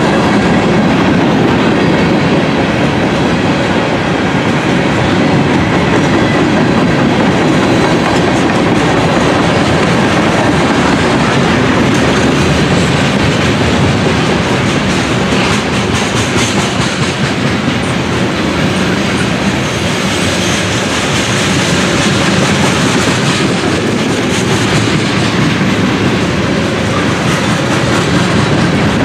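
Train cars rolling past with a steady, loud clickety-clack of wheels over the rails.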